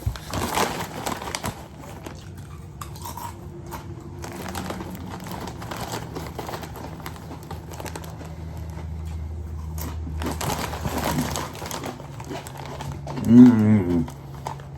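A bag of corn chips crinkling and crunchy chips being chewed, in bursts, with a short voiced hum near the end.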